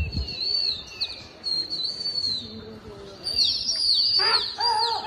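Small birds chirping: many short, high whistled calls that rise and fall, overlapping several times a second and growing busier in the second half. A louder, lower call comes near the end, and a brief low thump at the very start.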